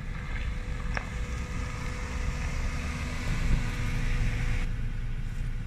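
Steady low rumble of a motor vehicle, likely a car, with a faint steady hum over it and a single click about a second in.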